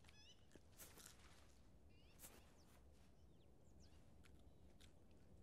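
Faint nature ambience: a few short bird chirps near the start and about two seconds in, and several soft clicks and rustles over a low steady hum.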